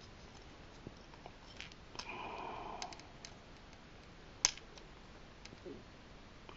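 Small plastic X-Wing toy being handled, its parts giving light scattered clicks and a brief rub, with one sharper click about four and a half seconds in.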